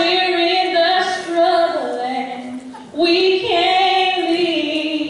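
A woman singing unaccompanied into a microphone: two long phrases of held, sliding notes, with a short breath about three seconds in.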